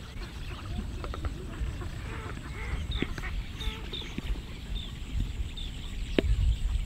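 Birds calling in the open air, with a short high falling chirp repeated every half second or so from about three seconds in, over a low rumble. A few sharp knocks of a wooden rolling pin against the board, the loudest near the end.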